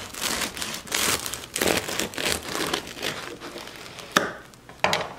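Serrated bread knife sawing through the crisp crust of a freshly baked no-knead loaf: a run of crunchy crackling strokes that grow weaker after about three seconds, then two sharp cracks near the end.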